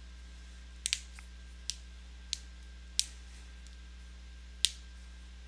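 Six short, sharp clicks at irregular intervals, the first two close together about a second in, over a low steady hum.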